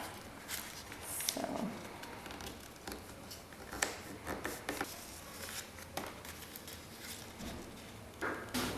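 Paper glider being folded and creased by hand: scattered soft crinkles and clicks of paper handling.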